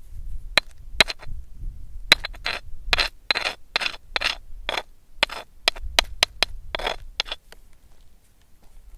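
A run of dry scraping and crunching strokes with a few sharp cracks, some fifteen to twenty in all at two or three a second, stopping about three-quarters of the way through.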